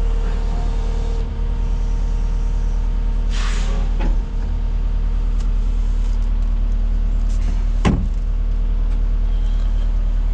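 Kubota SVL75-3 compact track loader's diesel engine running steadily, with a short hiss about three and a half seconds in and a sharp knock near eight seconds.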